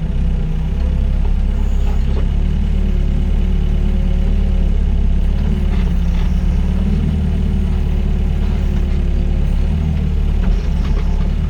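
Doosan DX55 mini excavator's diesel engine running steadily at work, a deep hum with a fainter whine that drifts up and down in pitch, and a few light knocks.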